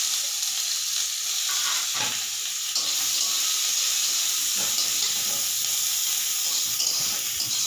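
Food sizzling steadily as it fries in a pan, with a couple of light knocks from stirring.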